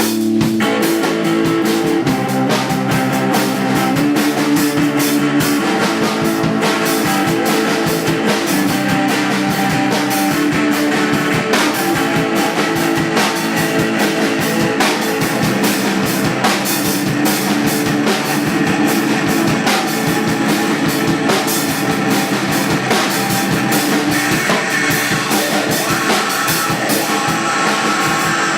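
Live band playing continuously, with a drum kit keeping a steady beat under guitar and other sustained instrument notes.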